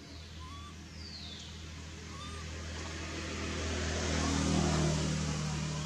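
A motor engine running steadily, growing louder to a peak past the middle and easing off near the end, as a vehicle going by would. A few faint, short high squeaks sound over it.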